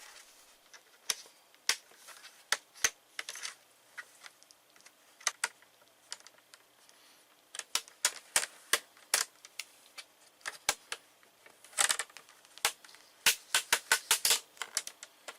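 Plastic snap clips of a laptop's screen bezel clicking and popping as a thin tool pries the bezel off the lid. The clicks are sharp and irregular, coming in quick runs about halfway through and again near the end.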